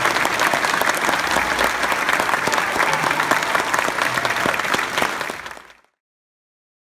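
Crowd applauding: a dense patter of many hands clapping, fading out to silence about six seconds in.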